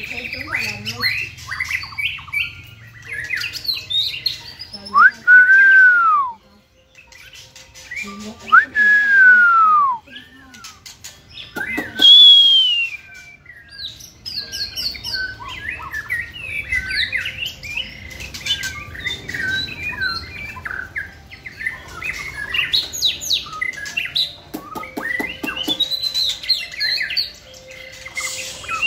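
Caged white-rumped shamas singing a fast, varied song of whistled and chattering phrases, broken by three loud arched whistles around five, nine and twelve seconds in.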